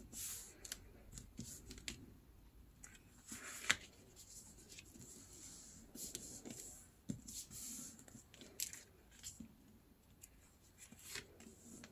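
Faint rustling and rubbing of newspaper under fingers as folded strips are pressed and smoothed flat, with a few short crinkles scattered through.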